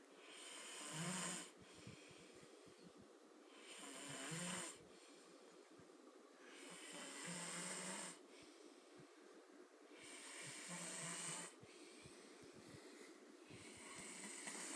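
A sleeping man snoring, one snore about every three seconds: each builds up over a second or so and then cuts off sharply, four in a row with a fifth starting near the end.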